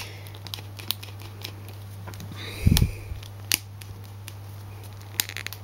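Handling noise of a small plastic toy figure being worked in the hands: scattered small clicks and rubbing as its stiff limb joints are moved, with one low thump about halfway through. A steady low hum runs underneath.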